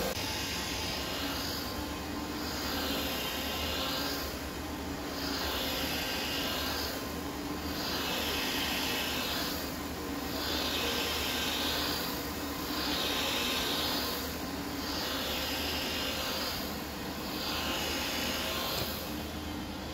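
BrushPro counter-rotating brush (CRB) carpet machine running, its motor and brushes working the pile of dry low-pile carpet. The sound swells and fades about every second and a half as the machine is pushed and pulled across the carpet. This is a CRB grooming pass, not cleaning.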